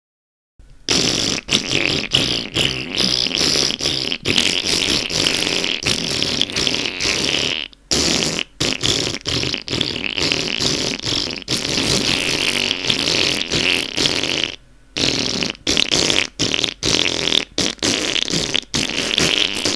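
A long, drawn-out fart that starts just under a second in and goes on, broken into many short sputtering puffs, with two longer pauses about eight and fifteen seconds in.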